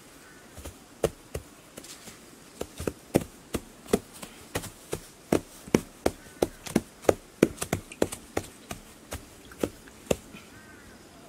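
Hands slapping grass turf down onto soil, a quick irregular run of sharp pats, about two or three a second, from just after the start until near the end.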